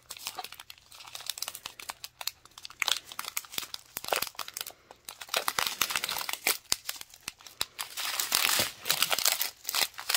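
Small resealable plastic bags of diamond-painting drills crinkling as they are handled and turned over, in quick irregular crackles.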